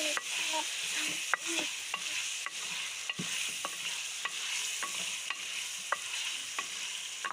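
Chicken and chopped onion frying in hot ghee in a metal pot, with a steady sizzle. A wooden spoon stirs them, knocking and scraping against the pot in frequent sharp clicks.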